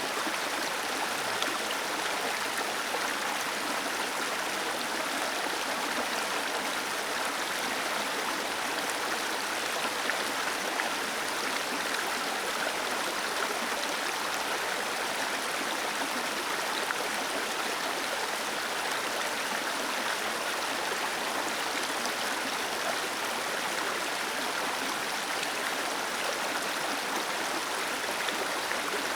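Waterfall cascading: steady rushing, splashing water with a bright hiss and little deep rumble.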